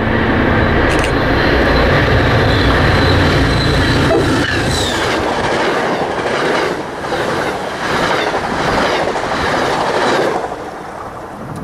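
MBTA commuter rail train of bilevel coaches running through a station at speed. A heavy low rumble with a thin high whine fills the first few seconds, then a rhythmic clickety-clack of wheels over rail joints. The sound drops away near the end as the train clears.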